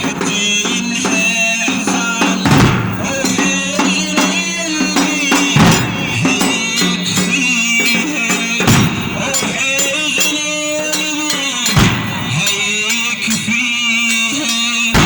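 A radood's solo male voice chanting a Shia latmiya in long held, bending notes over a percussion beat, with a heavy hit about every three seconds.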